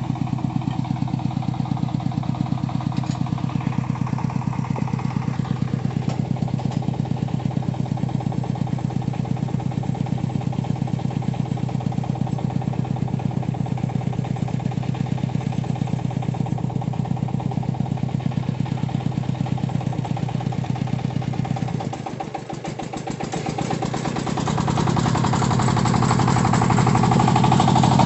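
Single-cylinder diesel engine of a công nông farm truck running steadily under load while it drives its winch, hauling the cassava-laden truck up a rocky slope. About 22 seconds in the engine dips briefly, then runs louder and harder near the end as the truck climbs.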